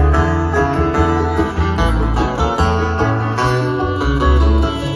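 Live bluegrass band playing loudly through a PA: a busy run of picked guitar and banjo notes over a steady bass.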